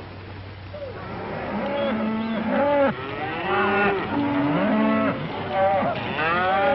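A herd of cattle lowing and bawling, several calls at once from about a second in, each rising and falling in pitch, over a low steady hum.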